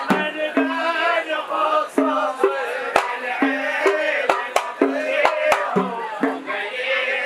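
Men singing a Hadhrami zarbadi song together, with hand drums keeping a steady beat of sharp strikes and short low drum notes.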